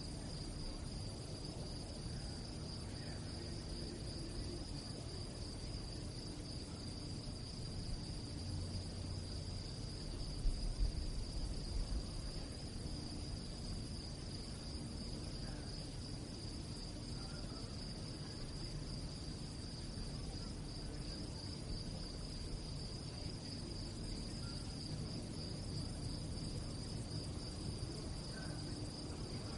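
Crickets chirping at night in a steady, continuous high-pitched trill. About ten seconds in there is a brief low rumble underneath.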